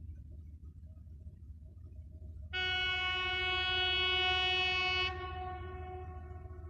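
Train horn sounding one steady note for about two and a half seconds, starting abruptly and then dying away in an echo, over a low background rumble.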